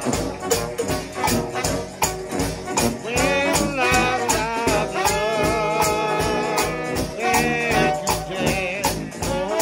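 United House of Prayer trombone shout band of trombones, trumpets and a sousaphone playing gospel over a steady drum beat on bass drum and snare. From about three seconds in, the horns hold long notes with a wavering vibrato.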